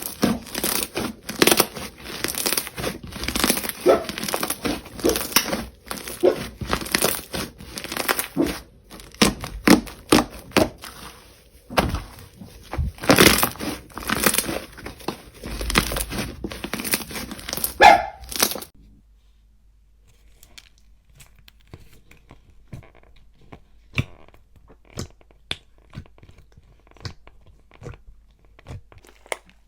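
Slime being pressed, stretched and poked by hand, giving dense crackling and popping clicks. About two-thirds of the way through it cuts off suddenly to a much quieter stretch of sparse, soft clicks and pops.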